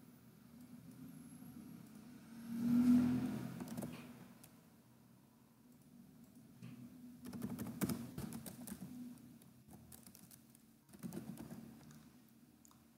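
Typing on a computer keyboard: quick runs of keystrokes, mostly in two bursts in the second half. A brief low sound comes about three seconds in.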